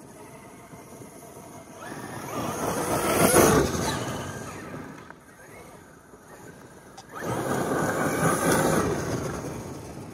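Traxxas X-Maxx 8S RC monster truck driving hard twice, each time its brushless electric motor rising in a whine as it accelerates, over the noise of its tyres churning dirt. The second pass is about five seconds after the first.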